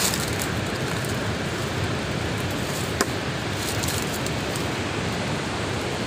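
Steady outdoor background hiss, even and without pitch, with one brief faint click about three seconds in.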